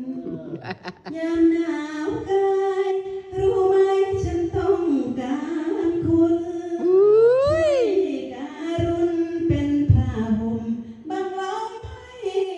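A woman singing solo into a microphone, holding long notes. About seven seconds in she sweeps her voice up in pitch and back down.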